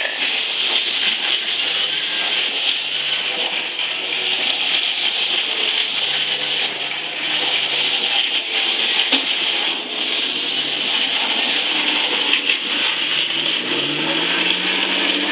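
Leaf blower running steadily with its small engine, revving up near the end.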